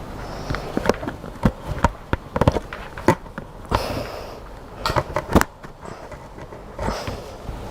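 Irregular sharp clicks and knocks of small metal hardware being handled while a CO2 solenoid valve rig is readied for testing, with two short hisses about four and seven seconds in.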